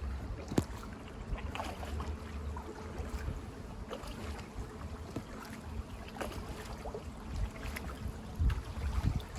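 Kayak paddle strokes dipping into canal water, with irregular small splashes and drips and a louder cluster of splashes near the end. A low wind rumble on the microphone runs underneath.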